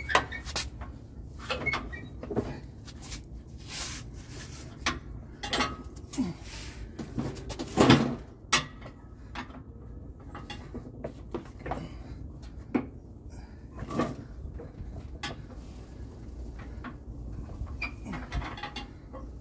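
Scattered metal clanks and knocks of hand work on a lawn tractor's mower deck, belt and linkage as the parts are fitted back on, the loudest knock a little before halfway, over a steady low hum.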